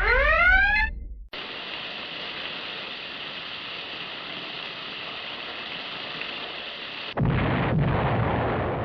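Sound-effect track: one last rising whoop of an alarm, then a steady hiss; about seven seconds in a louder rushing noise comes in and fades away.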